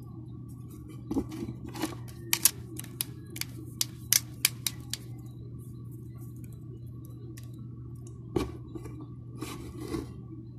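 A run of short, sharp clicks and taps from handling a smartphone and small tools, most of them in the first half and a few more near the end, over a steady low hum.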